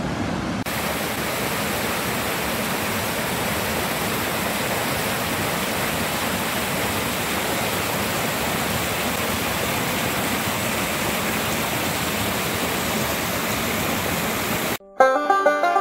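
Small waterfall and rocky creek rushing over stones, a steady rush of water. It cuts off suddenly near the end.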